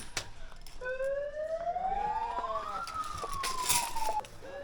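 Siren wailing: its pitch rises over about two seconds, falls slowly, cuts off, then starts rising again near the end.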